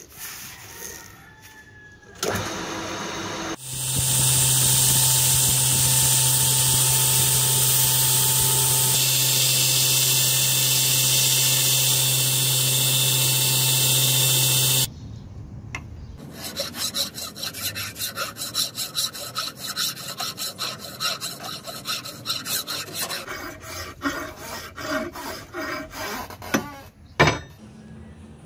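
Metalworking on a steel workpiece. A power tool runs steadily with a low hum for about eleven seconds and then cuts off. After that a hand tool works the metal in quick, repeated rasping strokes.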